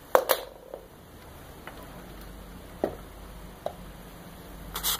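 A kitten scratches and digs in wood-pellet cat litter in a plastic tray. Scattered single clicks and knocks of pellets come first, then a short scraping rustle near the end.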